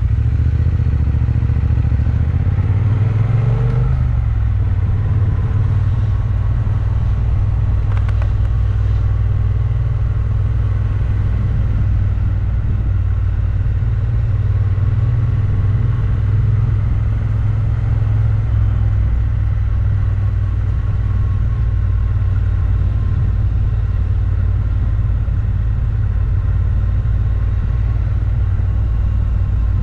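Motorcycle engine heard from on the moving bike, cruising steadily under a heavy low rumble of wind and road. About three to four seconds in, the engine note rises and then drops.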